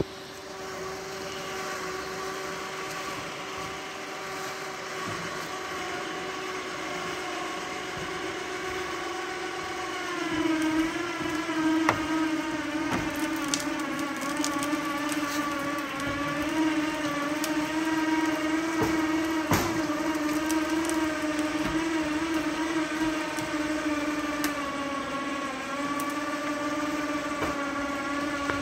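A motor runs steadily with one held pitch and a stack of overtones. About ten seconds in its pitch drops a little and it gets louder, and a few sharp clicks stand out over it.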